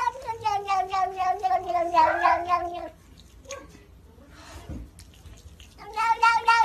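Tabby cat yowling in long drawn-out calls: the first lasts about three seconds and slides slowly down in pitch, and after a quieter gap a second one starts near the end.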